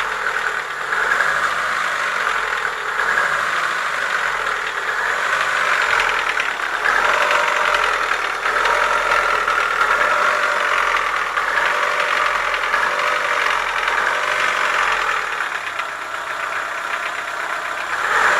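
Chevrolet Lacetti 1.6 four-cylinder petrol engine idling with a knock, its revs rising a little at times. The knock came from the cylinders and pistons, worn enough that the block had to be bored out and the piston set replaced.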